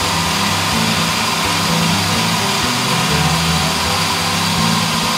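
YUKON II bridge saw cutting through a stone slab with water pouring over its blade: a steady, even machine drone.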